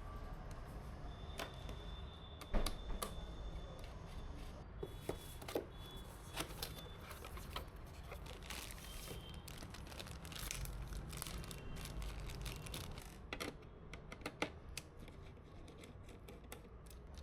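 Hands handling PC parts during assembly: irregular sharp clicks and taps of plastic and metal with some rustling, the loudest click about two and a half seconds in.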